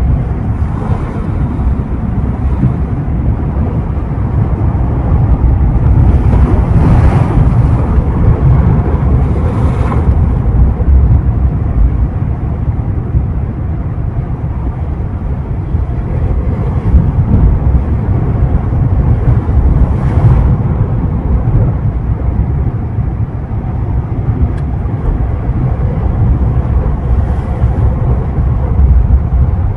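Sea waves breaking and washing on the shore, with a heavy low rumble of wind on the microphone. The surf swells up loudest about seven and ten seconds in and again about twenty seconds in.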